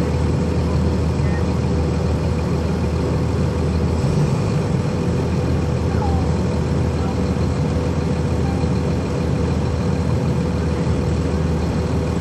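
Cummins ISC inline-six diesel engine of a 1999 Nova Bus RTS transit bus running steadily, heard from aboard the bus, with a low engine hum and a steady whine over road and traffic noise; the engine note shifts slightly about four seconds in.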